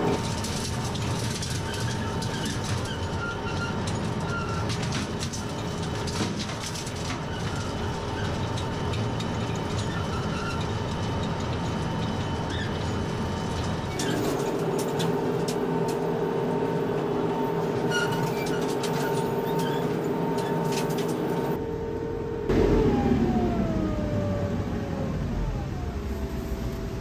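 TYM 574 tractor's diesel engine running at raised RPM with the PTO driving a 6-foot rotary mower, heard from inside the cab, with scattered clicks and knocks. Near the end the engine note falls as the revs come down.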